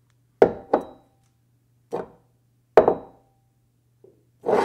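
Hammer blows on metal as an intro sound effect: two quick strikes, then two single ones, and a longer, heavier hit near the end, several leaving a brief ring, over a low steady hum.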